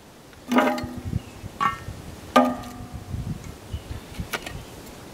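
Metal tongs clinking against a cast iron Dutch oven lid as hot charcoal briquettes are set on top, each strike ringing briefly. There are three sharp clinks in the first half and a fainter one near the end.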